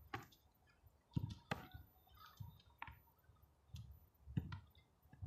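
About five sharp thuds at irregular intervals, from a football being struck and caught in a goalkeeper drill.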